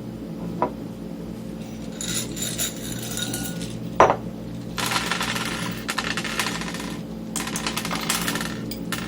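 Small metal parts and tools handled inside an opened cassette multitrack recorder: stretches of light scraping and clinking, with one sharp knock about four seconds in.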